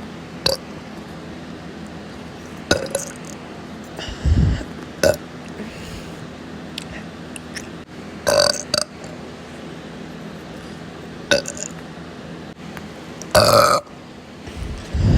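A person burping again and again: about seven separate burps a second or two apart, some short and sharp, the loudest and longest a little before the end. A steady low hum runs underneath.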